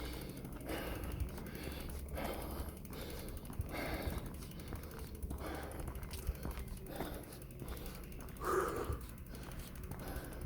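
A man breathing hard and heavily, a deep breath roughly every second and a half, with a louder one about eight and a half seconds in: out of breath from pushing a bicycle uphill.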